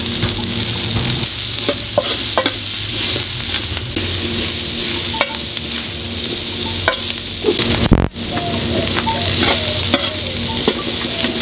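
Chopped onion, green bell pepper and serrano chile sizzling in freshly added oil on a large steel disco griddle. A metal spatula scrapes and clicks against the steel as it stirs them. There is one brief loud knock about eight seconds in.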